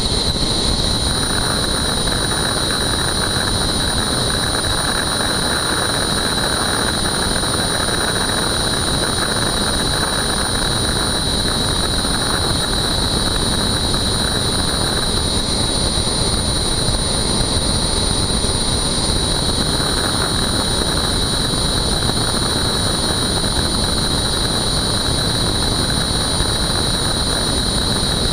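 Turbine helicopter running on the ground with its main rotor turning: a steady high whine over a constant rushing noise, with no change in speed.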